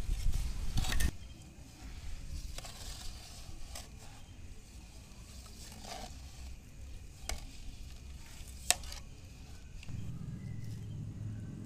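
Cooking in a large pot: food sizzling and being stirred, with scattered clicks and knocks and one sharp click about three-quarters through. A loud low rumble in the first second.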